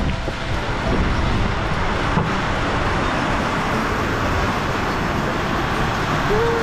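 Steady rushing noise on an action camera's microphone: wind and handling as the camera is carried against clothing. A brief squeak comes near the end.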